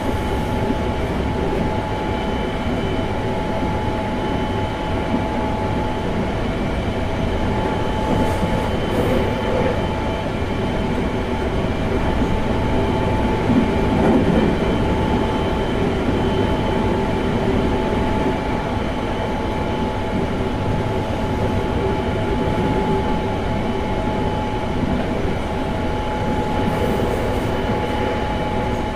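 Semboku Rapid Railway 7020 series electric train running steadily, heard from on board: a continuous rumble of wheels on rail with steady whining tones over it, swelling slightly about halfway through.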